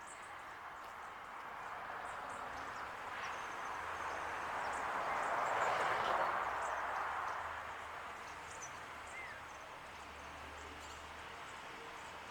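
A vehicle passing on a nearby road: its tyre and engine noise swells to a peak about six seconds in and then fades away. Faint bird chirps are scattered throughout.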